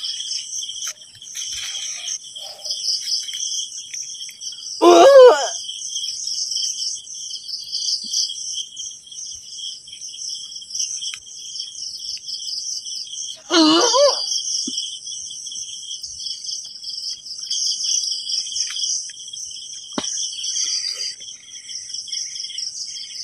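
Steady chorus of crickets chirring at night. A person cries out loudly twice, briefly, about five seconds in and again around fourteen seconds in.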